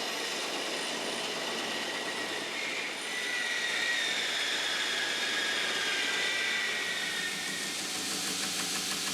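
Power saw cutting through a chunk of pecan wood, running steadily with a whine that shifts in pitch as the blade works through the wood.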